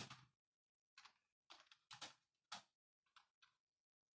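Faint, irregular taps of raindrops dripping, about seven over a few seconds with short gaps between them.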